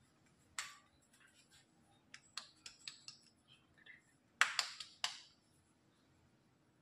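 Scattered short clicks and taps, with a cluster of quick ticks about two to three seconds in and the loudest group of three sharp clicks about four and a half seconds in.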